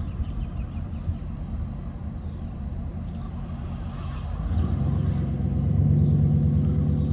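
Engine of a 1993 Dodge D150 pickup running as the truck pulls away slowly. About four and a half seconds in it gets louder and settles into a steady low drone.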